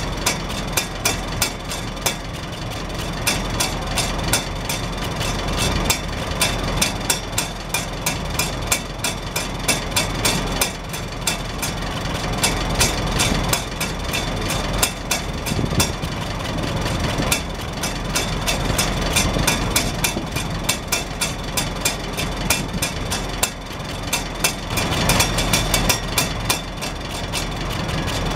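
Farmall Super H's four-cylinder engine idling steadily, its hinged exhaust rain cap lifting and tapping back down on the stack with the exhaust pulses in a rapid, uneven clatter.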